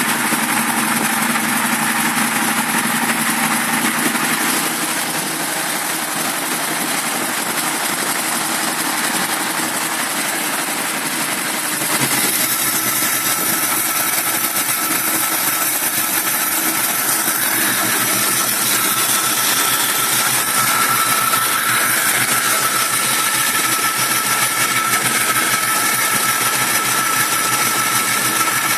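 1965 Ford Mustang engine with a 2150 two-barrel carburettor idling roughly. It runs on steadily, dips slightly about four seconds in, and gets louder about twelve seconds in, when a steady whine joins the sound.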